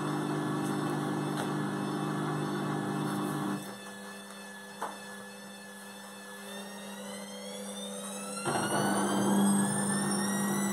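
Gorenje front-loading washing machine running with its drum turning in water: a steady motor hum that drops quieter about a third of the way in, a single click near the middle, then a whine that climbs steadily in pitch and grows louder towards the end.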